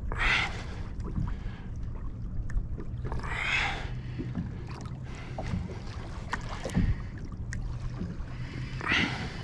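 Water sloshing against a kayak's hull on a lightly choppy sea, over a steady low wind rumble on the microphone, with three short splashy swishes, one near the start, one about three and a half seconds in and one near the end.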